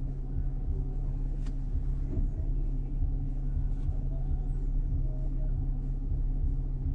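A 2019 Chevrolet Colorado pickup's 3.6-litre V6 petrol engine running while driving slowly, a steady low rumble, with a couple of faint clicks over it.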